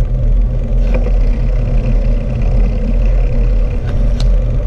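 Wind rumbling on the bare, unhoused microphone of a GoPro Hero 5 on a moving bicycle, with tyre noise on wet asphalt. A couple of sharp clicks come about a second in and near the end.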